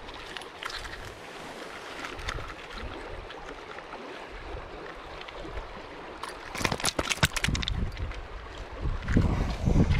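Shallow river current rushing over a gravel bank, with wind on the microphone. About two-thirds through comes a quick run of sharp clicks and rattles, and near the end strong wind gusts buffet the microphone.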